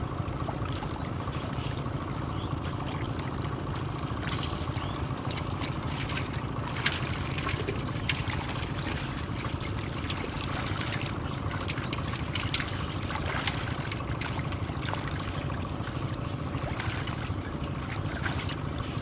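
Small splashes and trickling of shallow muddy water as hands grope through it and the mud beneath, scattered and irregular, with one sharper splash about seven seconds in. A steady low rumble runs underneath.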